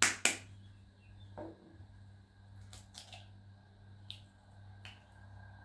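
Two sharp clicks in quick succession, then a handful of lighter clicks and taps, over a steady low hum.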